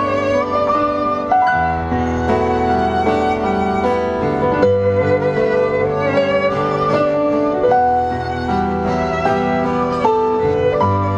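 Live acoustic band playing an instrumental passage: a violin carries the melody, its notes wavering with vibrato, over acoustic guitar and keyboard chords.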